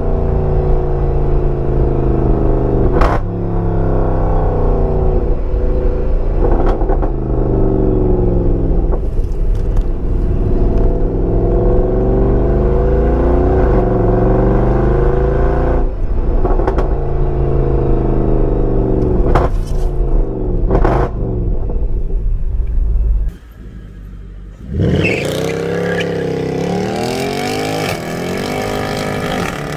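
Mercedes C63 AMG's 6.2-litre V8 heard through its exhaust, with the secondary cats and resonators removed, recorded by a mic in the trunk: it revs up and drops back repeatedly as the car accelerates and eases off, with a few sharp cracks. Near the end the sound cuts to the same car heard from a vehicle following behind.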